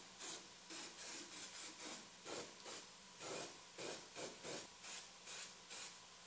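Aerosol can of weld-through primer spraying in short, faint hissing squirts, a little over two a second.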